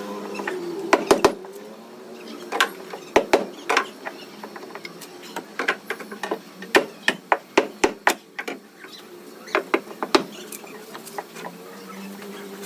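Hammer tapping on a car's sheet-metal body panel while a dent is being straightened: a series of sharp strikes at an uneven pace, some in quick pairs and runs, with pauses in between.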